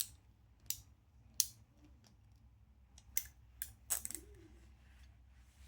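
A few sharp, irregular metal clicks from handling a Gearwrench 84-tooth locking flex-head ratchet, with no steady sound between them.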